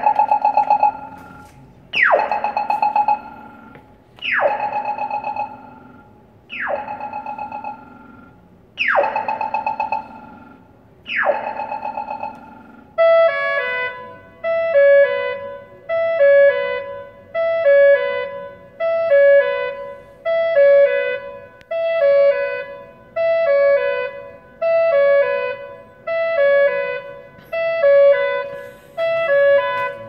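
Polara Navigator accessible pedestrian signal playing a custom electronic walk sound: six chirps about two seconds apart, each a quick falling sweep with a short tone after it. About thirteen seconds in, it switches to a short electronic melody repeating about once a second, the Canadian melody don't-walk sound for the flashing-hand countdown.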